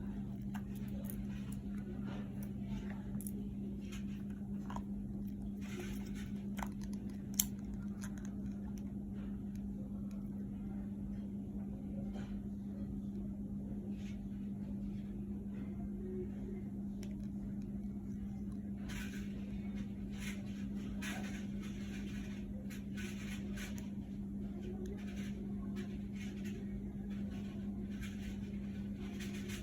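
A steady low hum with scattered faint clicks and rustling, and one sharp click about seven seconds in.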